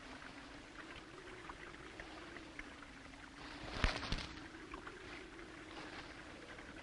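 Faint running water of a stream, with a brief louder burst of sound about four seconds in.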